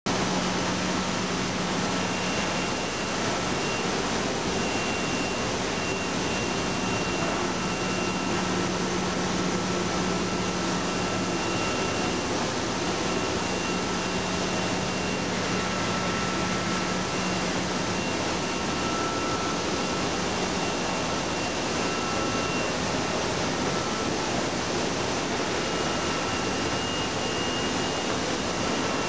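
International FZ right-angle folder gluer running empty: a steady mechanical whir over a low hum, with a faint high whine that comes and goes.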